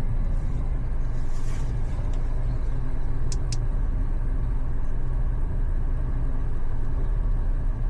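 Steady low rumble of a car on the move, road and engine noise with no music over it. Two short high chirps come close together a little over three seconds in.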